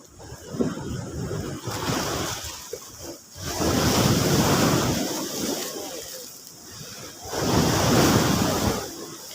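Sea waves breaking and washing up on the shore: a rushing surge that rises and falls, with the two loudest breakers about four seconds apart.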